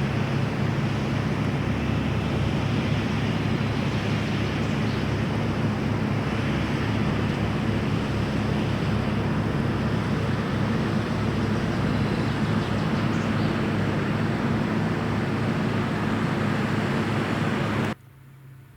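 Diesel engine of heavy harvest machinery running steadily, a constant drone with a hiss on top, cut off suddenly near the end.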